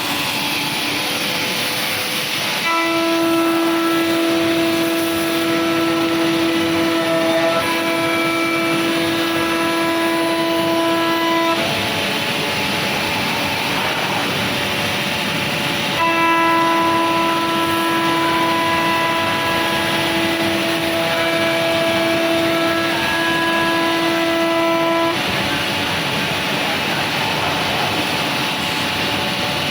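Bacci Artist CNC machining centre running over a steady hiss, with a high, steady spindle whine that comes in for about nine seconds, drops out, and comes back for another nine seconds.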